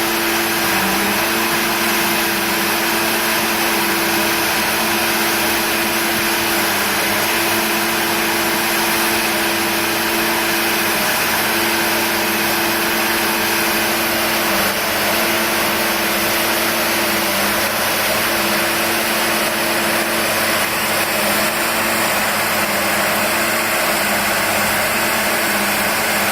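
Engine of a continuous-welded-rail work train running steadily, a constant drone that holds its pitch.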